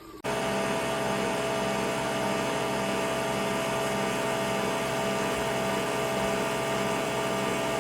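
Nespresso Vertuo Pop+ coffee machine brewing: it starts abruptly and runs with a steady whirring hum as it spins the capsule.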